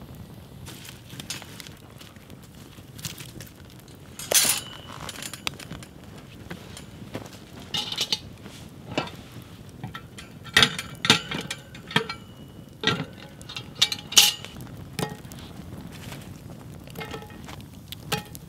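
Sharp metallic clinks and knocks from a Petromax FT6 cast iron Dutch oven, its lid and wire bail handle against the steel grill, as it is set over the campfire and embers are piled on its lid. About a dozen strikes at uneven intervals, several ringing briefly.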